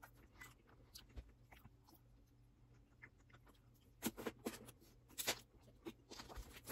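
Faint chewing and mouth sounds of someone eating chocolate. About four seconds in, and again near the end, come louder crackling clicks as a plastic water bottle is handled, opened and drunk from.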